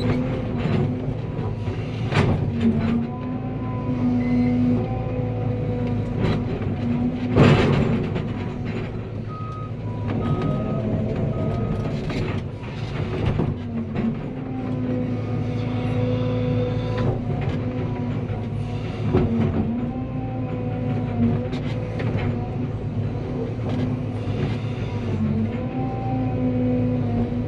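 Cat 320 excavator's diesel engine running under load, its tone shifting as the hydraulics work, with several sharp clunks. Three short beeps come about ten seconds in.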